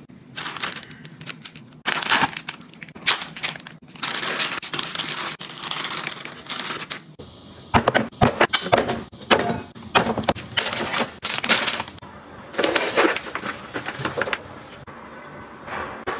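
Close-up handling of household packaging: plastic and cardboard rustling, crinkling and knocking in short, irregular bursts. The background changes about seven seconds in, where a clip changes.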